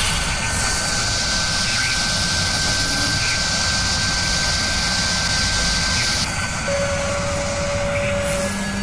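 Sound effect of a high-speed machine spindle running: a steady whirring rush with a high whine that drops away about six seconds in, followed by a short lower tone and then a low hum near the end.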